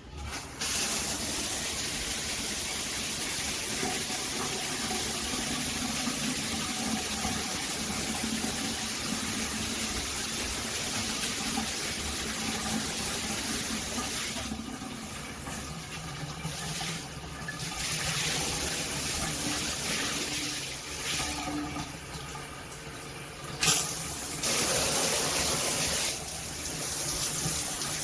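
Water spraying from a dual shower head combo: a steady hiss of running water that starts about half a second in and changes in character a few times. There is one sharp knock about 24 seconds in.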